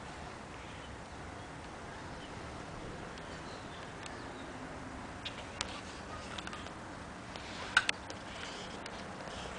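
Quiet outdoor ambience: a steady faint hiss broken by a few short, sharp clicks, the loudest a quick double click near the end.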